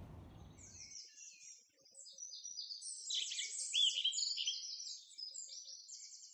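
Small songbirds chirping and trilling in quick, high notes, loudest around the middle. A brief stretch of low outdoor hiss cuts off about a second in.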